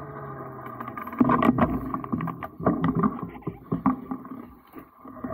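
Downhill mountain bike rolling slowly over a rough grass track, the bike knocking and rattling over the bumps, most busily from about one to four seconds in.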